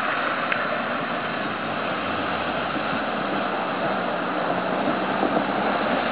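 Four-wheel-drive Ford Fiesta's 1.3-litre engine running steadily as the car wades through deep water, under a continuous rush and splash of water thrown up around it.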